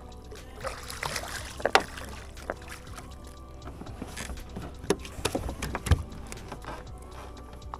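Water splashing and knocks against the boat as a catfish is lifted out and handled, with scattered sharp knocks, the loudest near the start and about six seconds in, over a steady low hum.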